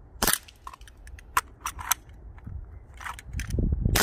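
Sarsılmaz SAR 9 airsoft pistol firing a string of sharp pops: one shot just after the start, three in quick succession about a second and a half in, then another a little after three seconds and one at the very end.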